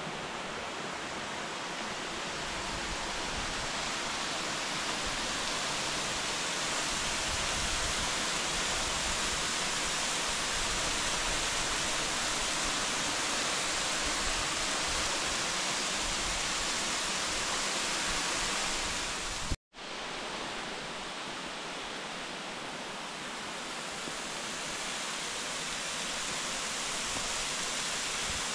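Steady rush of a waterfall, falling water making an even hiss-like roar. The sound cuts out for a split second about two-thirds of the way through, then resumes.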